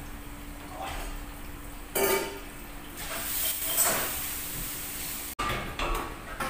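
Soaked rice poured from a metal colander into a large steel pan of hot oil, hissing and sizzling as it lands, after a sharp metal clank about two seconds in. Near the end a ladle scrapes and stirs the rice in the pan.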